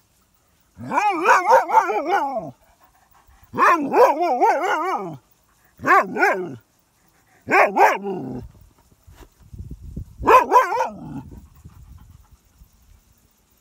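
Dog barking and yelping in five bursts of quick, wavering, high-pitched barks, with short pauses between them. Faint scuffling follows the later bursts.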